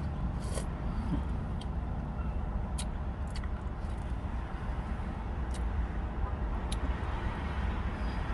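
Steady low rumble of a vehicle or road traffic, with a few sharp, light clicks scattered through, typical of a spoon tapping a plastic soup container while eating.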